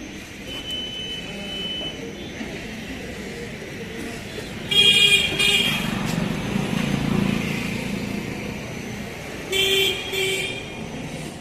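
Vehicle horn honking over road traffic: one honk lasting about a second, about five seconds in, then two short honks near the end.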